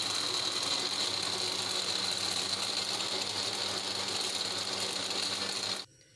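Countertop electric blender motor running steadily with a high whine, blending a jar of frozen falsa berries, mint and water into juice. It stops abruptly near the end.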